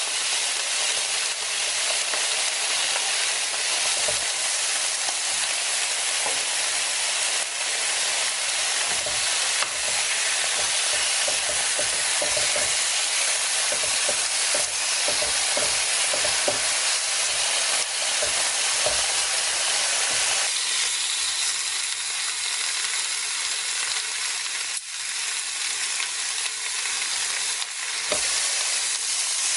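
Pork chunks sizzling on a hot tabletop Korean BBQ grill plate: a steady hiss with many small crackles and pops of fat. About two-thirds of the way through, the crackling thins to a smoother hiss.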